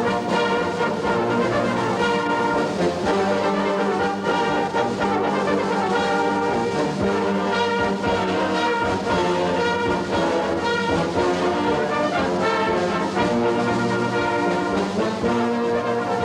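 Brass music with trombones and trumpets playing sustained chords.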